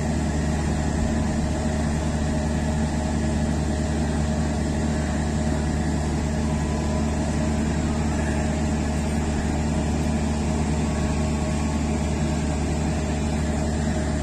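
Steady, unchanging low diesel hum of a stopped passenger train's engines idling. The train is hauled by a CC 206 diesel-electric locomotive and is standing held at a signal.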